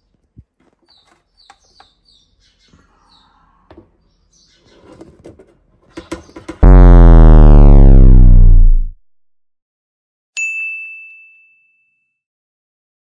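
Faint clicks and scrapes of tongs placing sliced mushrooms into beaten egg in a silicone mould, then a very loud added sound effect that falls in pitch over about two seconds. Near the end a single bright ding rings out and fades over about a second.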